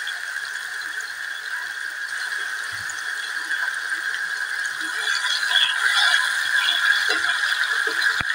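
Chopped tomatoes and cumin seeds sizzling in hot oil in a stainless steel pan, with scattered small crackles. About halfway through a metal spoon starts stirring, clinking and scraping on the pan, and the sizzle grows louder.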